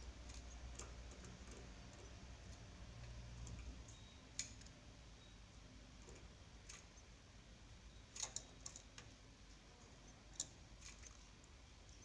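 Near silence with a few faint, scattered clicks and ticks, several of them close together about eight seconds in.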